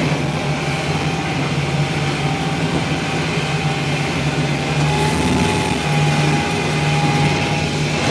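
Boat engine running steadily, a low drone under a constant hiss.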